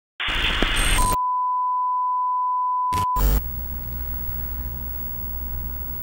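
TV test-card sound effect: a burst of television static for about a second, then a steady single-pitch test-tone beep held about two seconds that cuts off with a click. A low hum and hiss follow.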